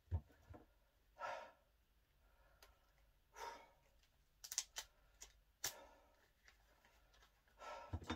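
A man breathing out heavily about every two seconds. There is a soft thump at the start and a few sharp handling clicks around the middle.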